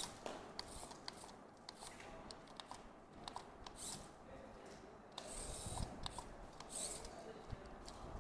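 Faint whirring of a small remote-controlled robot's geared drive motors in several short bursts, the longest about five seconds in, with scattered light clicks.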